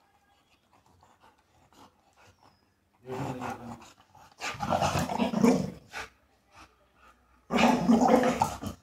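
Rottweiler 'talking': three drawn-out, loud vocal outbursts, the first about three seconds in and the last near the end. It is demanding to be let outside.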